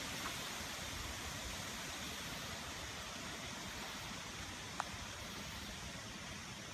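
Steady hiss of rain falling during a thunderstorm, with one faint click about five seconds in.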